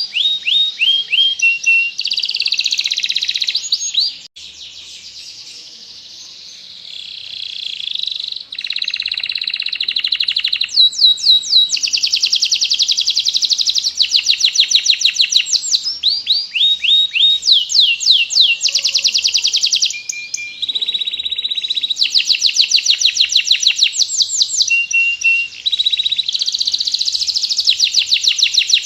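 Domestic canary in full song: a continuous, high-pitched stream of fast repeated trills and rolls, each phrase a rapid series of sweeping notes. The song drops to a quieter stretch about four seconds in, then comes back loud.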